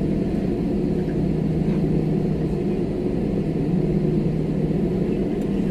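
Steady low rumble and hum of an airliner's cabin with the jet engines at idle, the plane waiting to take off.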